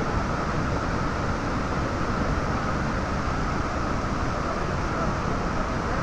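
Tall waterfall with a heavy flow: a steady, even rush of water falling and crashing into its plunge pool.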